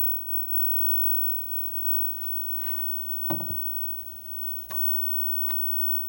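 Vintage tube TV powered up, giving a steady hum and hiss that swells and then drops away near five seconds in, with a few sharp clicks or snaps, the loudest about three seconds in.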